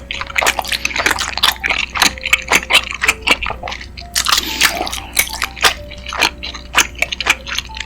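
Close-miked wet eating sounds: chewy tteokbokki rice cakes in thick sauce being chewed, with rapid sticky smacks and clicks.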